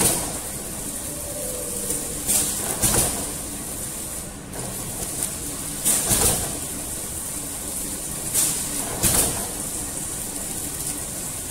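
Box-motion servo flow-wrapping machine running under load, packing fried bread sticks. A steady mechanical hum and hiss runs throughout, with a short double stroke about every three seconds as the machine cycles on each pack.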